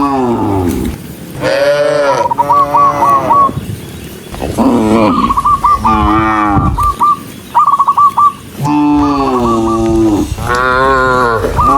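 A herd of cows mooing loudly, long drawn-out moos overlapping and following one another with only short gaps, mixed with runs of short repeated higher calls.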